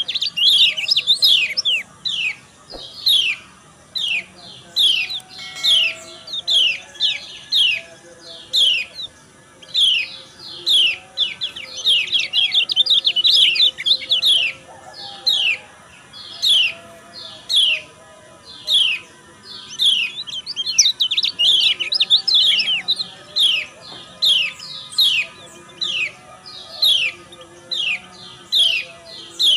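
Female white-eye (kecial kuning) giving a steady string of short, high chirps that slide downward in pitch, with denser flurries about 12 seconds in and again around 21 seconds. These are the female's 'ciak' calls used as a lure to set male white-eyes singing.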